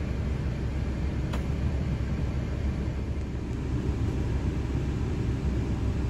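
Steady low rumble of a car idling, heard from inside the cabin, with one light click about a second and a half in.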